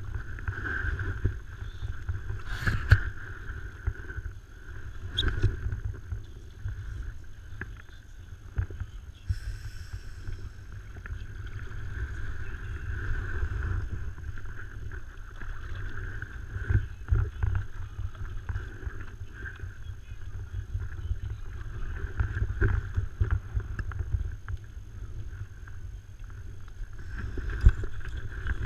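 Paddle strokes from a stand-up paddle on an inflatable SUP board: water sloshing and splashing with each stroke over a low rumble. A few sharp knocks are heard, a couple near the start and one near the end.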